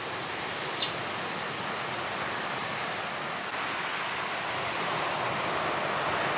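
Steady rushing of sea surf on a beach, with one brief high click just under a second in.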